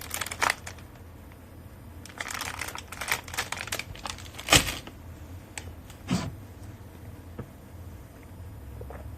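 Packaging rustling and crinkling as food is handled, with a few sharp clicks and knocks, the loudest about four and a half seconds in.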